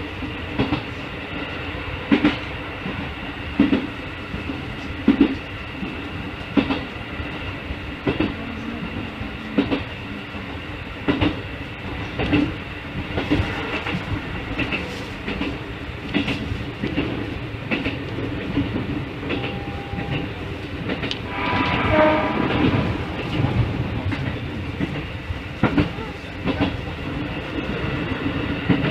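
Keikyu 1500-series electric train running, heard from inside the cab: steady running noise and hum, with the wheels clicking over rail joints about every one and a half seconds. A short burst of ringing tones comes through about 22 seconds in.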